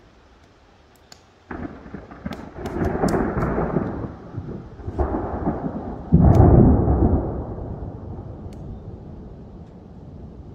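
Thunder rolling: a rumble breaks in about a second and a half in and swells, then a second, louder clap about six seconds in rolls on and slowly dies away.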